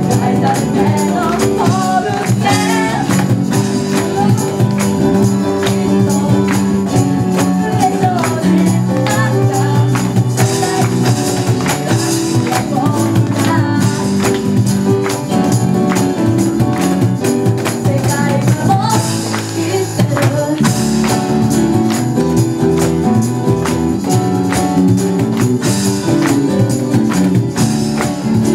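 Live acoustic pop band: a boy and a girl singing into microphones over keyboards, acoustic guitar and a cajon with cymbal, with a jingling tambourine-like percussion line.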